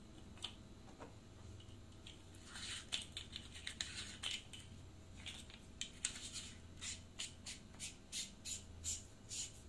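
The threaded metal tube and cap of an alloy flashlight being screwed closed by hand over a freshly loaded 26650 battery: a run of short scratchy clicks from the threads, faint, starting a couple of seconds in and going on at several a second.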